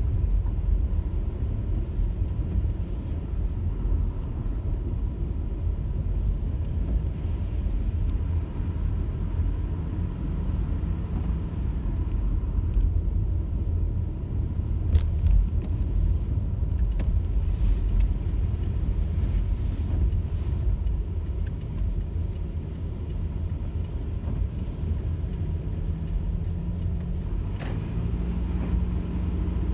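Car driving along: steady low road and engine rumble, with a couple of brief sharp clicks about halfway through and near the end.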